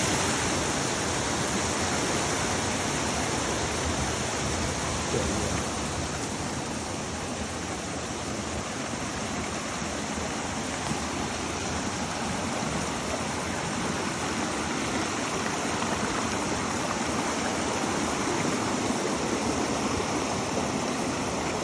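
Rushing water, a steady unbroken rush with no let-up.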